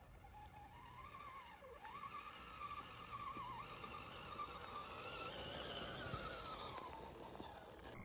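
Electric motor and gear whine of an RC scale crawler (Traxxas TRX-4 clone) climbing a dirt trail, its pitch rising and dipping with the throttle. It grows louder as the truck approaches, then fades.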